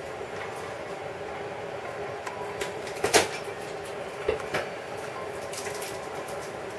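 A few knocks and clicks from hands and a knife working garlic at a cutting board, the loudest about three seconds in, with two smaller knocks just after, over a steady hum.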